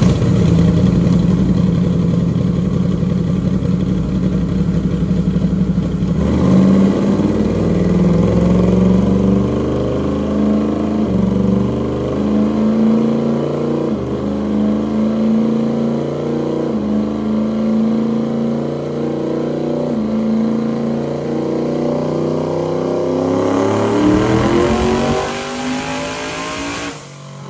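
Twin-turbocharged Ford Coyote V8 running on a chassis dyno. It holds steady speeds that step up several times as it is brought up to the pull. Then, in the last few seconds, it makes a full-throttle boosted pull, rising steeply in pitch before cutting off abruptly.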